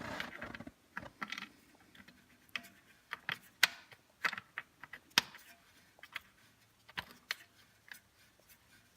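Irregular light clicks and taps, sparse and scattered, from small metal parts and tools being handled.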